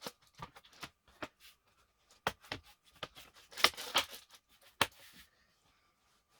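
Hands working on a laptop's plastic case and parts: a series of sharp clicks and taps, with a brief scraping rustle a little past halfway through.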